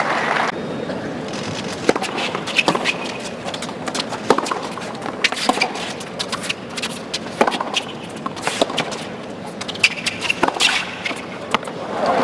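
Tennis rally on a hard court: sharp racquet-on-ball hits and ball bounces about once a second, with short squeaks of shoes on the court. Crowd applause swells up at the very end.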